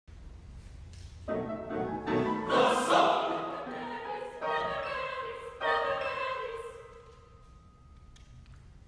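Mixed choir singing in a reverberant church: the voices come in together about a second in, in short loud chordal phrases with brief breaks between them, then the last chord dies away with one high note lingering.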